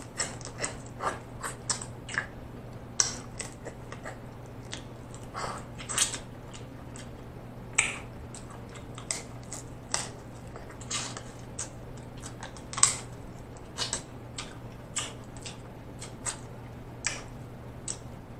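A person eating king crab leg close to the microphone, sucking at the shell and chewing, heard as irregular sharp smacks and clicks.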